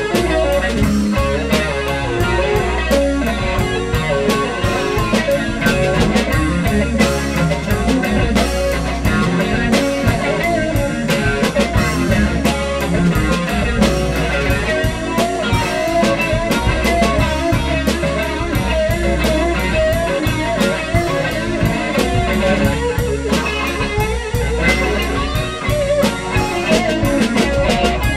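Live blues-rock band playing an instrumental break: electric guitar over a drum kit, keeping a steady groove.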